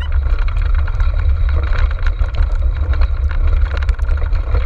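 Steady low rumble of wind and motion on the microphone of a camera riding a dog-sled cart in motion, with scattered clicks and rattles from the cart running over the trail.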